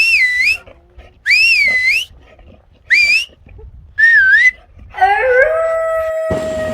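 A high-pitched warbling whistle sound, wavering up and down in pitch, repeated four times in short bursts under a second each. About five seconds in, a steady siren-like tone rises briefly and then holds.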